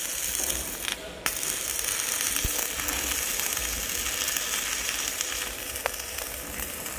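Crackling, sizzling hiss of a stick-welding (SMAW) arc burning a 2.6 mm electrode on steel, fed by a small inverter welder. The arc breaks off for a moment about a second in and is struck again.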